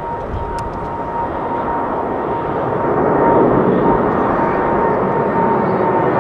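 Boeing 777F freighter's twin GE90 turbofan engines at takeoff thrust during the climb-out: a steady jet roar with a high whine running through it. It grows louder about three seconds in as the aircraft comes closer.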